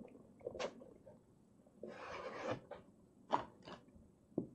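Cardboard earphone box being handled and slid open: a few faint taps and clicks, with a soft rustling slide about two seconds in.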